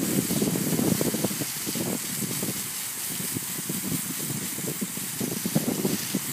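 Blower air blast rushing and hissing as it sweeps topdressing sand off aeration plugs on turf, with a gusty, crackling rush underneath.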